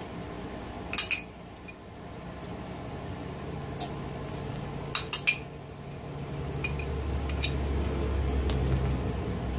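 Metal spoon clinking against a ceramic bowl and a glass baking dish while melted butter is spooned over bread: a sharp clink about a second in, a quick run of three around five seconds, then a few lighter taps. A steady low hum underneath grows louder in the second half.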